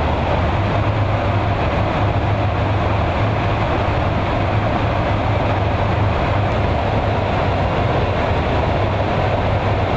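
Steady in-flight noise inside a KC-135 Stratotanker's boom operator pod: a constant rush of airflow with a low, even engine drone underneath.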